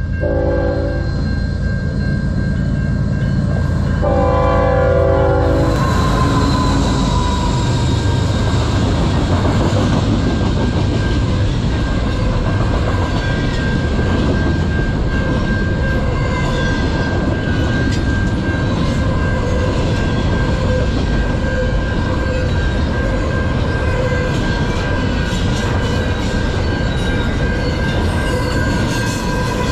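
CN freight locomotive horn sounding for a level crossing, a short blast at the start and a longer one about four seconds in. The locomotives then pass and a long train of double-stacked intermodal container cars rolls by with a steady rumble and wheel clatter. Under it all, the crossing signal's bell rings as a steady high tone.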